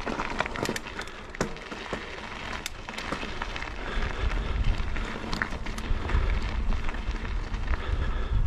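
YT Capra mountain bike's tyres rolling slowly over loose gravel, a steady crunch with scattered sharp clicks of stones. The crunch and a low wind rumble on the microphone grow louder as the bike picks up speed.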